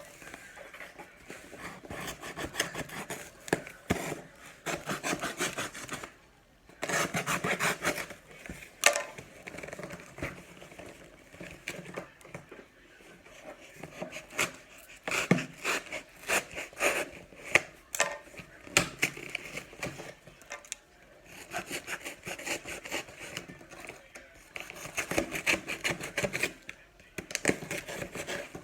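Objects being handled and rubbed at close range: repeated scraping and rustling with many small knocks, broken by a few short pauses.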